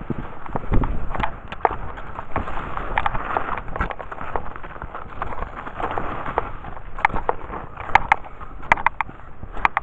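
Cross-country skis striding and crunching through soft spring snow, with irregular sharp clicks and crackles that come thicker in the last few seconds.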